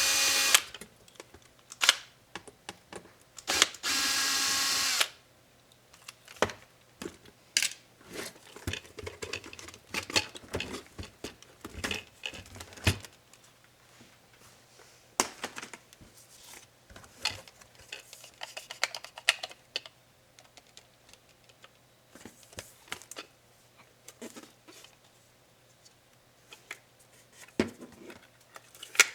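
Small electric screwdriver whirring briefly twice, at the start and about four seconds in, backing out laptop screws. Many small clicks and taps of plastic and metal laptop parts being handled and pried follow.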